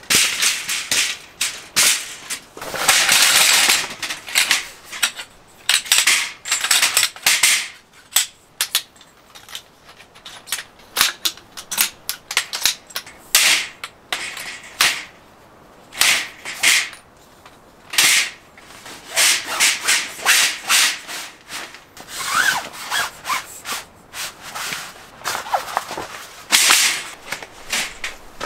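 Folding metal-framed camp table and stand being unfolded and set up: a string of sharp clicks, knocks and rattles as legs and frames lock into place, with fabric rustling. A few short squeaks from the frame joints come about two-thirds of the way in.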